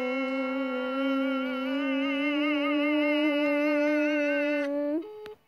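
A boy singing one long held note, its pitch rising slightly and wavering with vibrato in the middle, breaking off about five seconds in.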